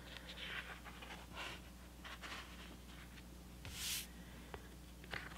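Faint rustling of paper as the pages of a spiral-bound planner are handled and turned, with one louder swish of a page flipping about four seconds in and a couple of small clicks near the end.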